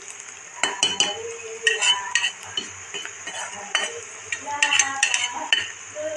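A metal ladle scraping and clinking against a kadai in irregular strokes as vegetables are stirred in hot oil, over a steady sizzle.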